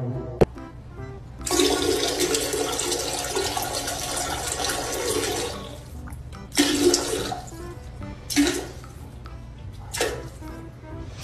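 Toilet flushing: a loud rush of water lasting about four seconds, followed by three short bursts of sound.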